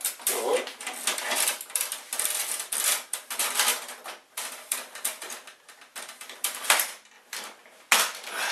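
Plastic printer casing parts clicking and rattling in quick, irregular clatters as a cover is handled and pulled free, with a couple of sharper knocks near the end.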